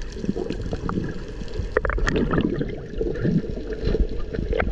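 Muffled underwater water noise around a camera: a dense, irregular gurgling rumble of bubbles and water movement, with a few sharp clicks about two seconds in and again near the end.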